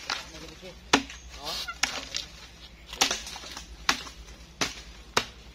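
A machete chopping into the decayed wood of a jackfruit log: five sharp chops at uneven intervals, roughly a second apart.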